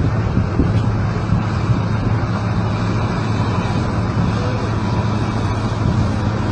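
Engine of a heavy machine running steadily: a constant low drone that does not change.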